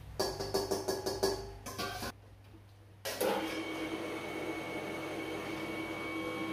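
Stainless-steel colloid mill grinding peanuts into peanut butter. A quick run of clicks in the first second or two is followed by a short near-silent break, then the mill's motor runs with a steady whine.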